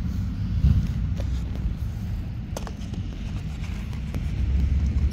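Low, uneven rumble of wind on the microphone, with a few light clicks and taps.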